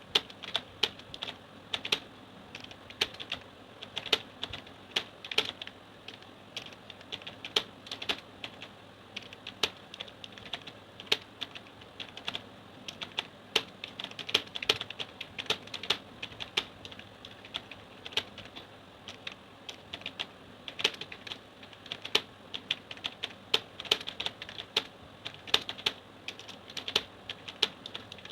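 Computer keyboard typed on continuously during a timed typing speed test: an uneven stream of key clicks, several a second, at a pace of about 32 words per minute.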